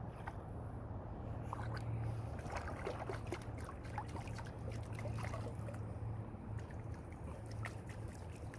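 Water sloshing in a gold pan with many small clicks of gravel and sand moving against the pan, over a steady low hum.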